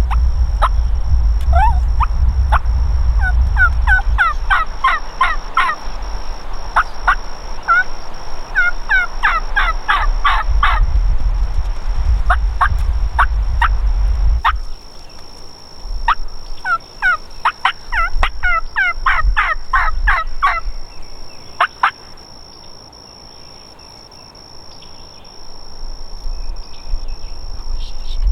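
Wild turkey calling in four runs of short, sharp, repeated notes, several a second, for about twenty seconds, then stopping. Gusty wind rumbles on the microphone in the first half, over a steady thin high whine.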